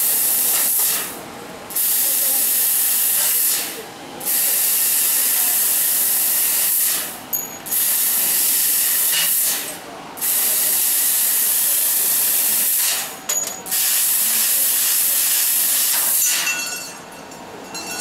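Fiber laser tube cutting machine cutting steel pipe. The assist-gas jet from the cutting head makes a loud, steady hiss that stops briefly between cuts about five times, then falls away near the end.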